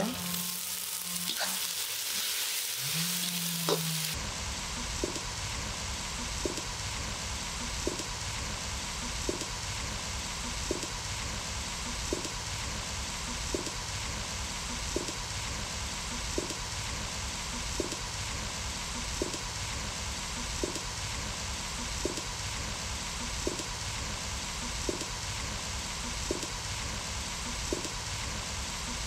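Chopped tomatoes frying in hot oil with onions and ginger-garlic paste in a wide black kadai. The sizzle is brighter for the first few seconds as they land, then settles into a steady sizzle with a light tick about every second and a half.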